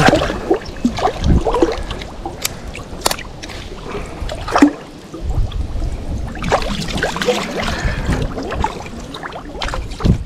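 Creek water sloshing and splashing as a man wading in it handles a hooked catfish and the branch it is tangled in, with scattered sharp clicks and knocks from the handling. A denser stretch of splashing comes a little past the middle.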